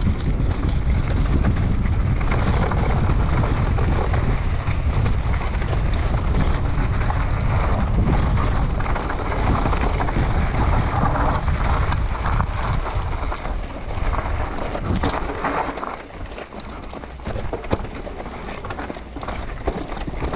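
Wind buffeting an action-camera microphone as a mountain bike rolls downhill at speed over a dirt and gravel trail. In the last few seconds the wind noise drops, and the bike clatters and rattles over rocks with frequent sharp knocks.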